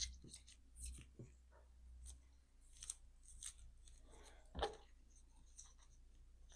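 Faint, scattered small clicks and taps of small tools and objects being handled on a bench, with a brief rustle and a louder click about four and a half seconds in.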